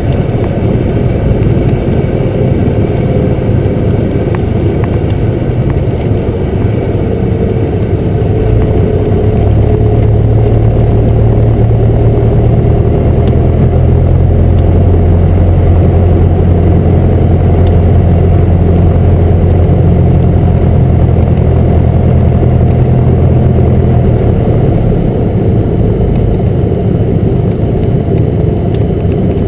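Cessna 172 Skyhawk's piston engine and propeller running steadily, heard from inside the cabin. The low hum grows louder about a third of the way in and eases off again near the end.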